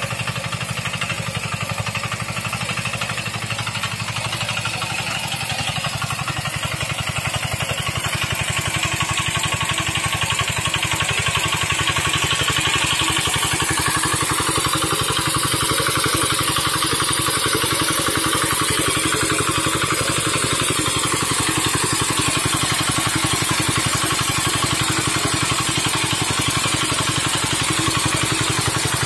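Field Marshal 5 hp single-cylinder diesel engine of a walk-behind mini tractor running steadily under load as it pulls a furrowing plough through soil. It grows a little louder about eight seconds in.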